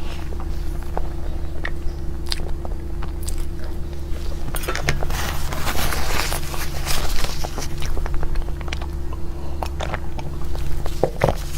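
Close-miked biting and chewing of cake, with moist clicks and smacks and a stretch of crisp crunching about five seconds in, over a steady low electrical hum.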